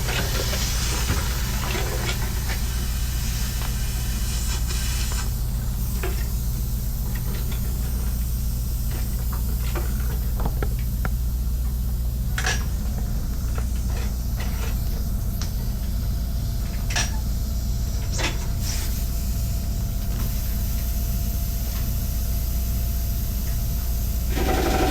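A steady low engine hum of a vehicle idling, with scattered sharp metallic clicks and knocks from tyre-changing work. About 24 s in, a louder, higher engine note joins.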